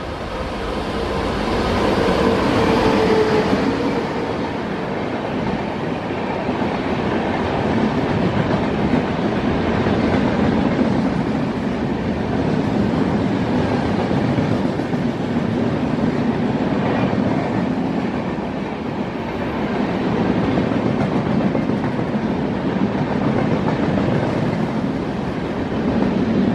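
Electric locomotive hauling an express of LHB coaches, passing at speed. The locomotive goes by with a steady tone that dips slightly in pitch about three seconds in. The long rake of coaches follows with a steady rolling rumble and wheel clatter that swells and eases.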